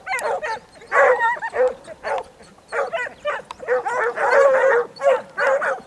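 A pack of hounds baying together while running a hare's scent trail, several voices overlapping in wavering, yelping cries that come in repeated runs.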